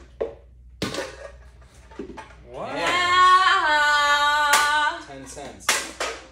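A woman's long, loud vocal cry, held for about two and a half seconds, falling a little in pitch and then holding steady. Sharp plastic clicks and clacks come before and after it as large hollow plastic surprise eggs are pulled apart.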